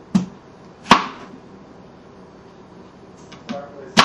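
A few sharp knocks and thumps, the loudest about a second in and another right at the end, with quiet between them.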